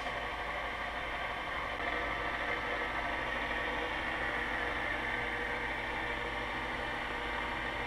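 KitchenAid stand mixer's motor running steadily, driving its pasta cutter attachment as a sheet of dough is fed through and cut into noodle strips. The motor gives an even whir that holds the same pitch throughout.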